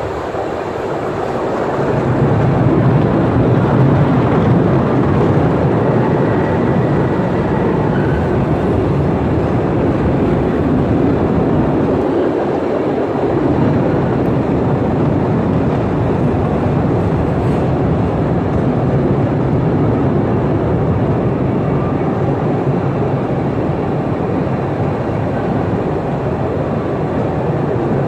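Postojna Cave's open-car tourist train running along its track: a steady rumble of wheels and cars that swells over the first couple of seconds, then holds.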